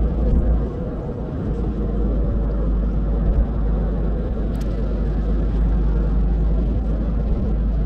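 Steady rumble of a moving road vehicle, tyre and engine noise heard from inside the cabin.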